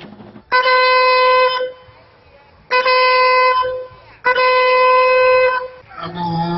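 Three long, steady blasts of a horn on one unchanging note, each about a second long with short gaps between; a man's voice begins calling out near the end.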